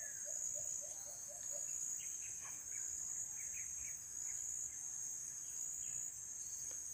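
Steady high-pitched insect chorus of crickets. In the first second and a half a bird gives a quick run of short low notes, and a few faint higher bird chirps follow.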